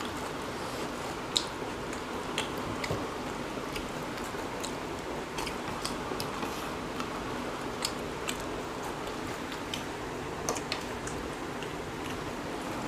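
Quiet eating by hand: fingers squishing and mixing rice and chicken curry on plates, and chewing, with scattered faint clicks over a steady background hiss.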